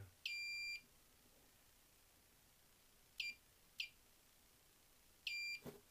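Digital multimeter's continuity beeper sounding as its probes touch points on a model locomotive's motor: a half-second beep, two short chirps about half a second apart, then another half-second beep near the end. Each beep marks a closed circuit between the probe tips while a short circuit in the wiring is being traced.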